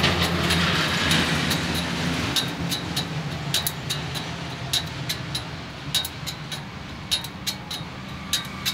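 Hand file sharpening the teeth of a sawmill band saw blade: short, sharp metal strokes, about three a second and irregularly spaced, starting about two seconds in. A low machine hum fades away underneath.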